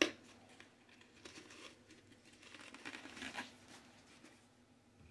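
A sharp click, then faint crinkling and scratching from small parts and materials being handled at close range.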